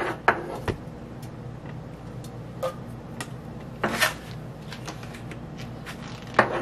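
A few sharp clinks and knocks of a utensil against cookware over a steady low hum: three taps in quick succession at the start, a single tap a little before the middle, a double knock about two thirds of the way in, and one more near the end.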